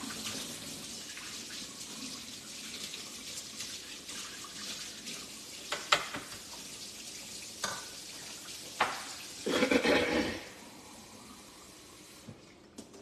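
Thick cream soup simmering in a stainless steel pot on an electric range: a steady bubbling hiss with a few sharp pops and a louder burst of bubbling about ten seconds in, after which it goes quieter.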